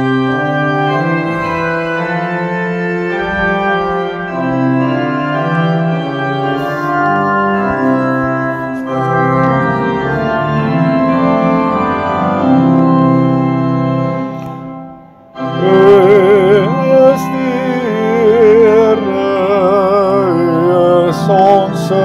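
Organ playing the introduction to a hymn in sustained chords; after a brief break about two-thirds of the way in, singing with strong vibrato comes in over the organ.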